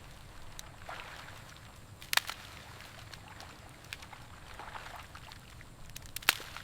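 Faint splashing and squelching of feet and hands in the mud and water of a flooded rice paddy, with two sharp snaps about two seconds in and near the end.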